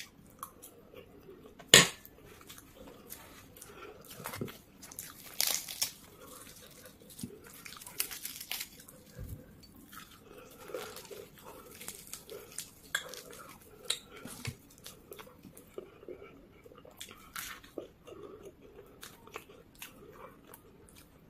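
Close-miked sounds of a person chewing Maggi instant noodles and crisp fried samosa, with many short crunches and crackles scattered throughout. The loudest is one sharp click about two seconds in.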